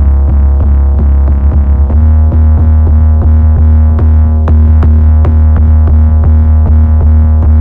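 Distorted, saturated 808 bass playing in a loop alongside a programmed drum pattern with regular short ticks, its tone shifting about two seconds in as the EQ and attack are adjusted.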